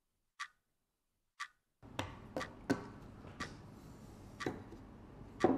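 A wall clock ticks twice, a second apart, over silence. Room tone then comes in with a run of irregular clicks and knocks from glass bottles being handled on a wooden table, the loudest knock near the end.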